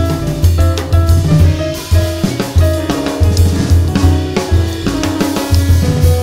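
Jazz band playing live: grand piano, double bass and a busy drum kit, with the drums prominent.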